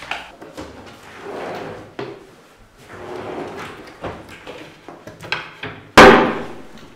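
Drawers being opened and rummaged through: scattered clicks and knocks with rustling swells, then a loud bang about six seconds in.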